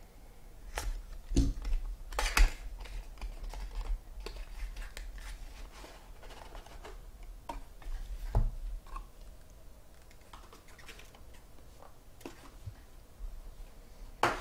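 Trading cards and their packaging handled on a table: scattered clicks, taps and light rustling, with a few sharper knocks in the first few seconds and another about halfway through.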